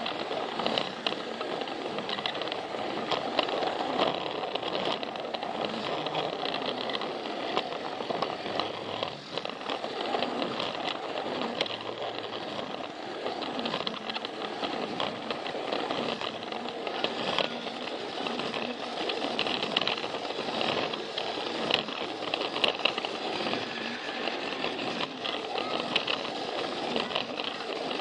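Battery-powered Plarail toy train running along plastic track, its small motor and gears whirring with a steady, dense rattle.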